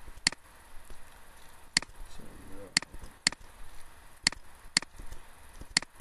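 Computer mouse buttons clicking: about seven sharp, separate clicks spread over the few seconds, some coming in pairs about half a second apart.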